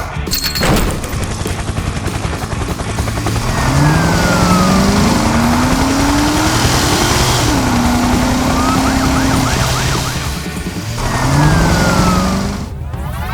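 Loud rumbling vehicle sound effect with an engine revving up twice, each time rising in pitch and then holding, over background music.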